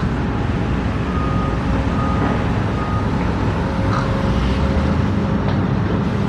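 Steady low mechanical rumble, with a reversing alarm beeping three times, about once a second, between one and three seconds in.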